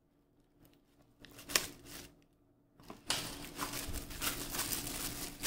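Clear plastic packaging crinkling as a plastic-sleeved phone case is lifted out of its box and handled. A couple of light clicks come about a second and a half in, and steady crinkling starts a little past halfway.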